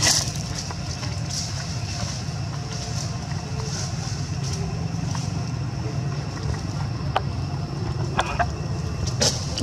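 Steady low rumble with a high, gently pulsing buzz over it, and a few sharp clicks late on.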